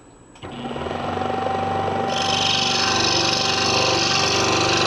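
Scroll saw switched on about half a second in, its reciprocating blade quickly coming up to a steady running speed. About two seconds in, a loud high hiss joins as the blade starts cutting into the wooden puzzle blank.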